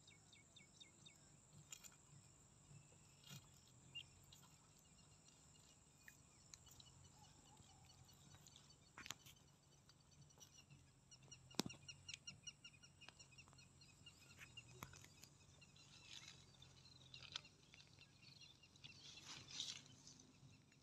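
Near silence: faint outdoor background with trains of rapid high chirping and a few scattered sharp clicks, the loudest about halfway through.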